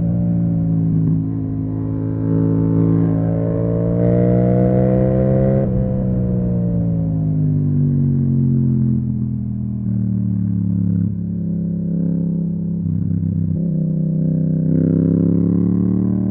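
Yamaha MT-07's parallel-twin engine through an Akrapovic exhaust while riding. The revs climb for several seconds, drop off sharply about six seconds in and wind down, then rise again near the end.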